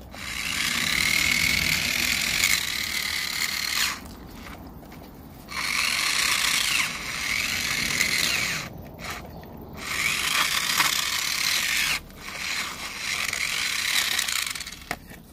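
Toy RC car's electric motor whining in four bursts of throttle, its pitch rising and falling, with a hiss from the drivetrain and spinning wheels.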